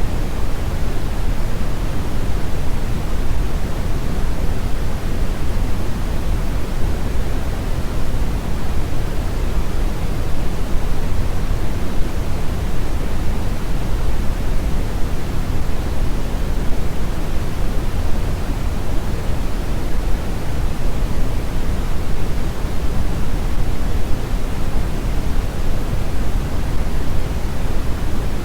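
Brown noise: a steady, even hiss weighted heavily toward the low end, a deep rumbling rush with little treble, unchanging throughout.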